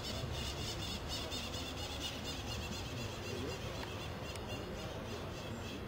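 Outdoor ambience: a steady low background noise with faint, rapidly repeated high chirping, about four to five a second.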